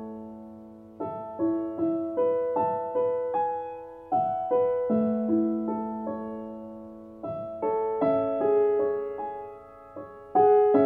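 Background music: a slow, gentle piano melody, single notes and soft chords struck and left to ring out and fade.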